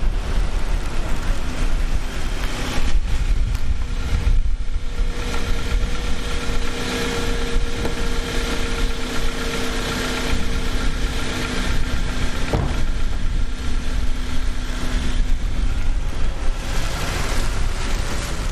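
Wind rumbling on the microphone over a steady engine hum, with one sharp knock of a car door shutting about twelve seconds in.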